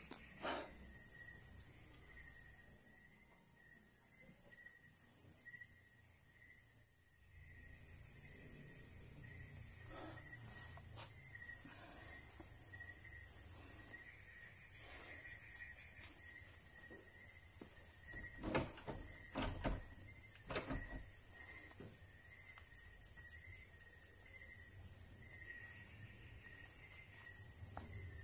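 Night insects calling steadily: a high, finely pulsing trill with a lower chirp repeating at an even pace beneath it. A few brief knocks come about two-thirds of the way in.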